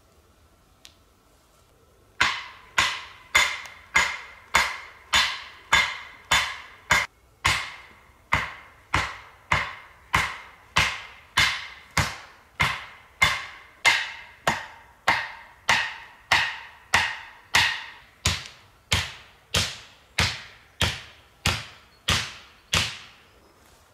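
An axe hammering on a wooden pole in a steady rhythm of about three blows every two seconds, each blow a sharp knock with a brief metallic ring. The blows start about two seconds in and run on until near the end.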